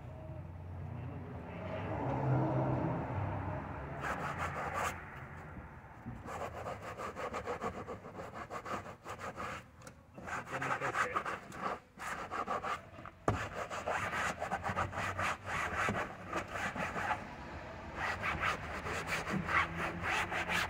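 Damp rag scrubbed briskly back and forth over a car's cloth headliner: a fast, rhythmic rubbing rasp of many strokes a second, strongest from about six seconds in.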